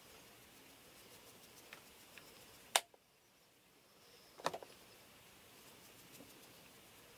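Faint soft scratching of a foundation brush stroking skin, broken by a sharp click about three seconds in and a short cluster of clicks about a second and a half later.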